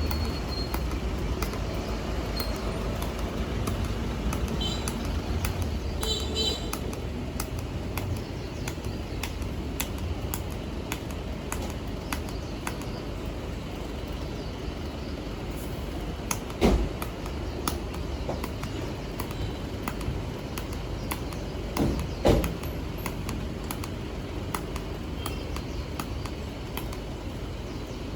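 A steady low rumble with scattered faint clicks, and two louder short knocks about halfway through and again a few seconds later.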